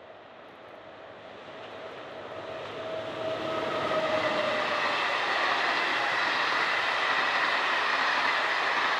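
Intercités passenger train, an electric locomotive hauling Corail coaches, passing at speed. Its wheels on the rails grow louder for about four seconds as it approaches, then hold as a steady rolling rush while the coaches go by.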